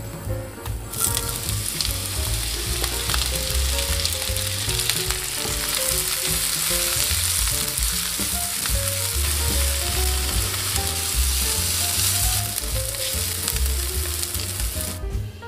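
Sliced onions go into hot oil in a frying pan about a second in and sizzle steadily as they fry, stirred with a wooden spatula. Background music plays underneath.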